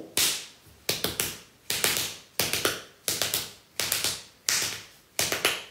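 Rhythmic finger snapping: sharp snaps in close pairs, about one pair every 0.7 seconds, in an even beat.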